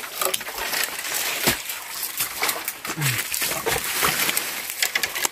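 Dry twigs and branches crackling and rustling as brush is pushed and handled, with many small snaps throughout. About three seconds in comes a short, low, falling grunt.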